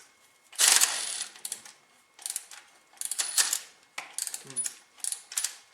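Socket wrench working a bolt loose: about six short bursts of metallic clicking and clinking, some with a brief high ring, with pauses between.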